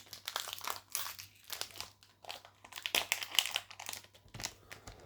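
Foil Pokémon booster pack wrapper crinkling in the hands as it is torn open, a dense run of irregular crackles that thins briefly about two seconds in.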